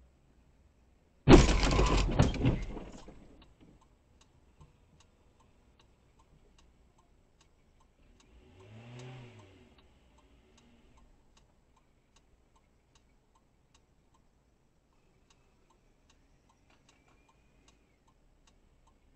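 A sudden loud car collision about a second in: a crash of impact followed by a second or so of crunching, then fading. After it comes a faint, even ticking, about two a second, and near the middle a brief low hum that rises and falls.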